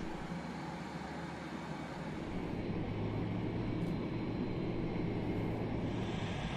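Steady engine rumble of aircraft and vehicles on an airport apron, with a low steady hum joining about three seconds in.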